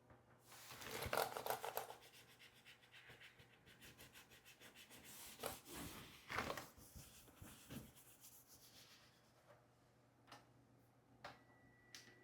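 Faint rubbing and scrubbing on a laptop keyboard as it is cleaned by hand. The loudest rub comes about a second in, followed by quick, fine scrubbing strokes and a few more rubs midway.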